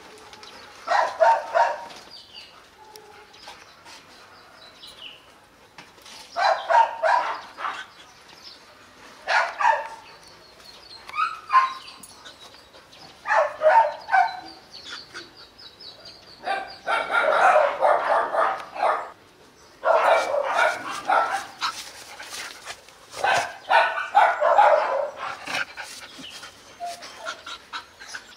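Dogs barking in repeated bouts of a second or two each, with short quieter pauses between them.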